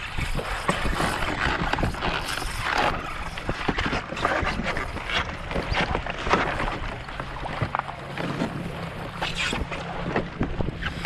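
Wind on the microphone and choppy water slapping against a fishing kayak, with irregular knocks and splashes and a faint low steady hum underneath.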